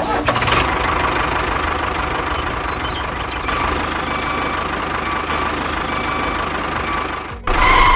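An engine running steadily, with a louder burst near the end.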